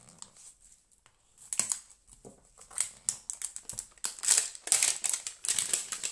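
Scissors cutting open the plastic wrap of a sealed trading-card pack, with the wrapper crinkling: a run of short, sharp snips and rustles that starts about a second and a half in and grows busier and louder near the end.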